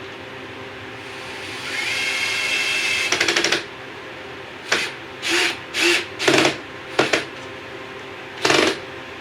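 Power drill driving a screw into a wooden screen frame: a steady run of about a second and a half that ends in a rapid clicking, then six short trigger bursts as the screw is snugged down.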